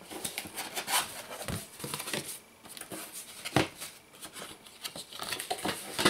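Cardboard packaging being handled and opened: scraping and rustling of a cardboard box and its flaps, with a few knocks, the sharpest about three and a half seconds in.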